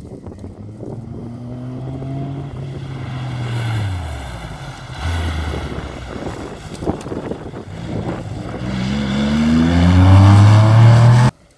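Classic Porsche 911 rally car's air-cooled flat-six, rising in pitch under power, then easing off about four seconds in. From about eight seconds it pulls hard again, rising in pitch and growing loudest as it passes close, before the sound cuts off suddenly near the end.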